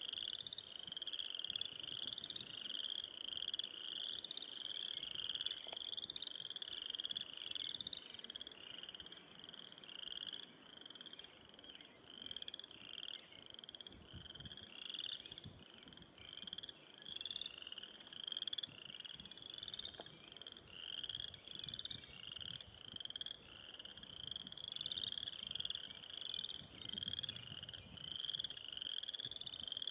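A chorus of frogs calling, short high rising peeps repeating about once or twice a second without pause.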